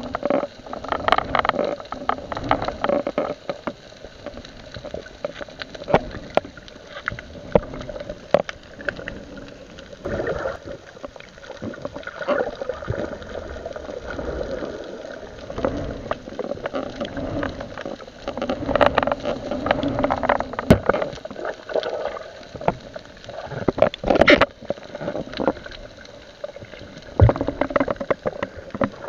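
Water gurgling and sloshing around an underwater camera as a spearfisher swims, in uneven swells, with scattered sharp clicks and knocks.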